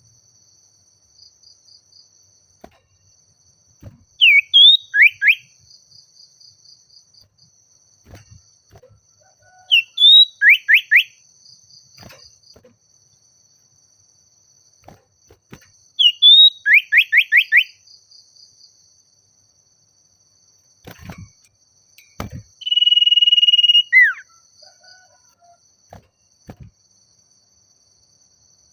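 Common iora (cipoh) calling: three phrases, each a short high note followed by a quick run of descending slurred whistles, the runs lengthening from two to five notes; then a long steady whistle ending in a falling slur near the end. Insects trill steadily behind it, with a few low thumps.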